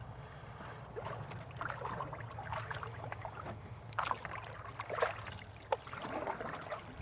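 Water splashing and trickling around a canoe moving down a fast river, with a few short, irregular splashes.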